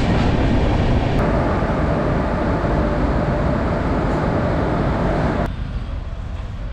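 Loud steady rushing rumble of a passenger train running. About five and a half seconds in, it cuts abruptly to quieter road-traffic ambience.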